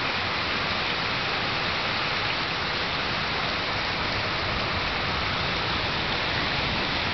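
Heavy downpour of rain falling on a flooded street, a steady, even hiss.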